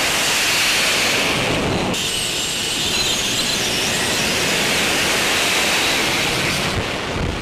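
AV-8B Harrier II's Pegasus turbofan at high power for a short takeoff roll: a loud, steady rush of jet noise with a high wavering whine on top. The sound changes abruptly about two seconds in and again near the end.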